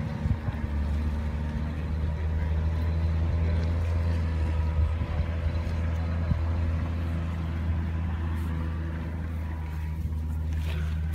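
Vehicle engine running at a steady speed, a low even hum with overtones.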